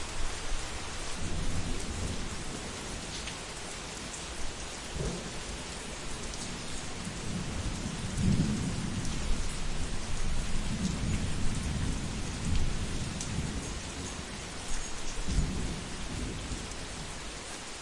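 Thunderstorm: steady rain hissing, with thunder rumbling several times. The longest roll builds across the middle and another comes near the end.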